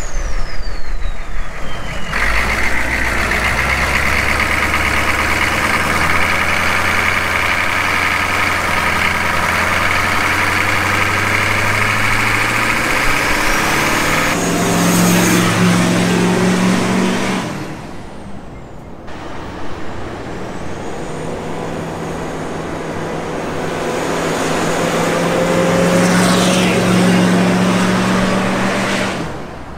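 Humvee's turbocharged 6.5-litre diesel V8 under way and accelerating, its engine note climbing steadily. The sound is cut together from several short clips that change abruptly.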